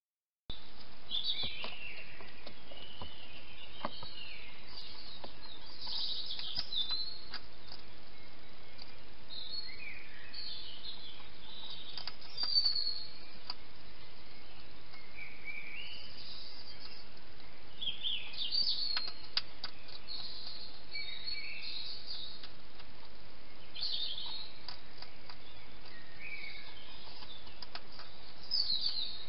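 Songbirds singing short, varied phrases again and again, high-pitched, over a steady hiss from the trail camera's microphone. Faint scattered clicks come through now and then.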